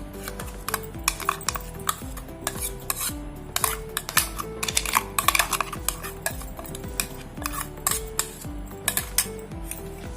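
Metal utensil clinking and scraping against a dish while stirring, with sharp clinks coming thickest around the middle, over background music with a steady beat.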